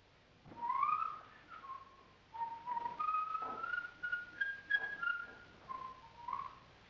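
A person whistling a meandering tune, with a few faint knocks underneath.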